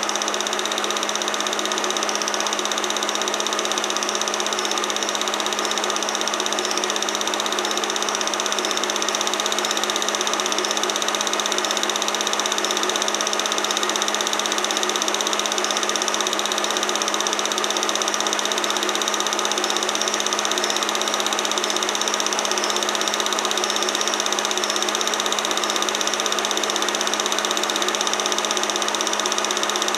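Steady mechanical whir of a film projector running, an even clattering hum with a constant low drone underneath.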